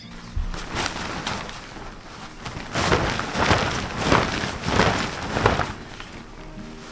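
Tent fabric rustling in repeated surges as the front wall of a Coleman Tough Screen 2-Room tent is pulled and gathered by hand. The loudest surges come in the middle.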